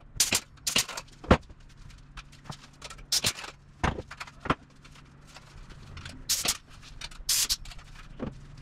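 Pneumatic rivet squeezer setting rivets in an aluminum aircraft bulkhead: short, sharp bursts and clicks at irregular intervals, about eight in all.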